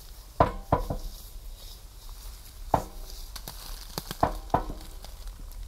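Harsh electronic noise from a table of effects pedals: several sharp clicks, each ringing briefly, most of them in pairs, over a steady low hum and crackling hiss.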